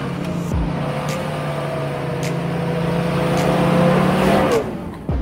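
Off-road 4x4's engine pulling through deep mud under steady throttle, its revs and loudness climbing slightly over about four seconds, then dropping away sharply near the end. A few faint clicks sound over it.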